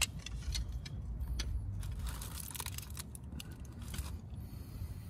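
Channel-lock pliers clicking and scraping on a motorcycle's tight spin-on oil filter as they are set and worked to loosen it: scattered light metal clicks, with a quick run of rattling clicks a couple of seconds in.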